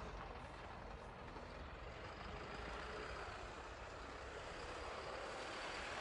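Steady outdoor background noise: a faint, even hiss with a low rumble and no distinct events.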